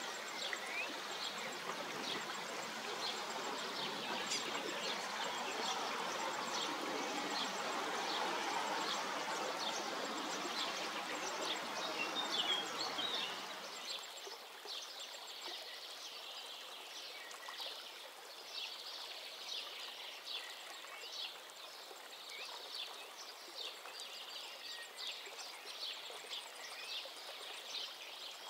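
Stream water running steadily, loud at first and then much quieter after a sudden drop about halfway, with short high bird chirps scattered throughout.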